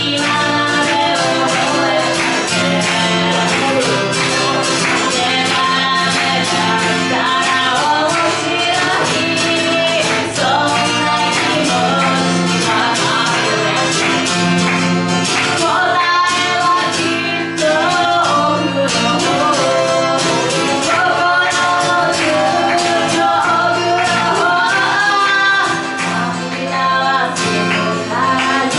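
A woman singing in Japanese while strumming a steady rhythm on an acoustic guitar, a live solo performance through a microphone.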